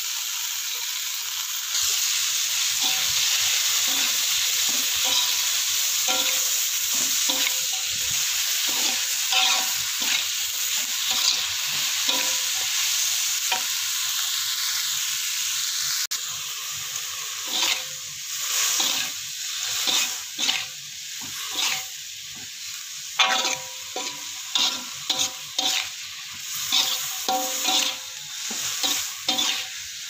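Water spinach sizzling in a hot metal wok as it is stir-fried with a metal spatula. From about halfway through, the spatula scrapes and knocks against the wok in quick, irregular strokes over the steady sizzle.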